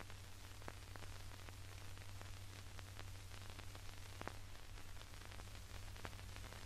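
Surface noise of an old optical film soundtrack: a steady hiss and low hum with scattered faint clicks and pops.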